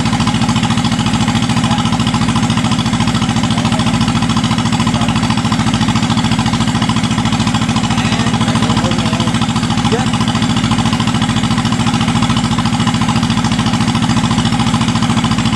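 Engine of a WD102 Pro tracked rice combine harvester running steadily at a constant speed while the machine stands still, a dense, even mechanical drone with a fast regular beat.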